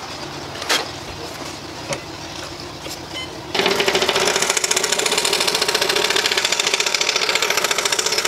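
A few light clicks while the scroll saw is stopped, then about three and a half seconds in the saw starts and runs steadily with a fast, even chatter from the reciprocating blade as it cuts a thin wooden clock blank.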